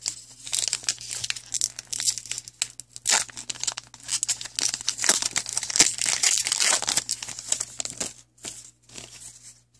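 A 2015 Upper Deck CFL Football foil card pack being torn open and crinkled in the hands, a dense crackling that thins to a few light clicks near the end.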